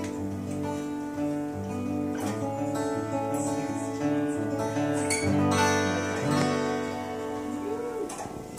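Acoustic guitar being strummed, chords ringing on steadily.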